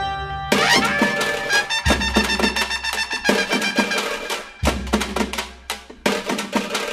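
Instrumental background music with drums and percussion. A new section begins about half a second in.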